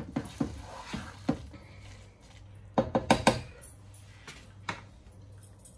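A spatula knocking against a metal pan as a cooked chicken and chana dal mixture is pounded fine. A few scattered knocks come first, then a quick cluster of them about three seconds in.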